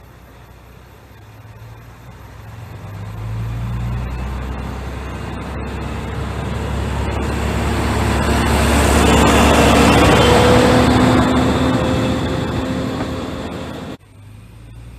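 Single-car diesel railcar pulling away from a station platform: its engine revs up about three seconds in, and the train accelerates past close by, growing louder to a peak of engine hum, whine and rolling noise. Near the end the sound cuts off suddenly to a much quieter background.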